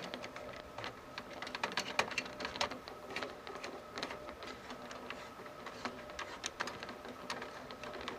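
Irregular small clicks and scrapes of a hand screwdriver turning the spring-loaded screws of a CPU heatsink down onto the motherboard, over a faint steady hum.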